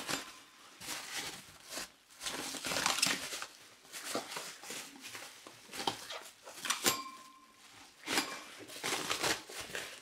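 Bubble wrap rustling and crinkling in irregular bursts as it is pulled off a motherboard, with a sharp click about seven seconds in.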